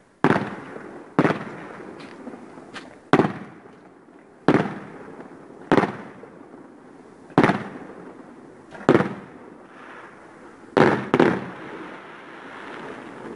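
Aerial fireworks bursting: a series of about ten sharp bangs, coming every second or so, each trailing off in an echo.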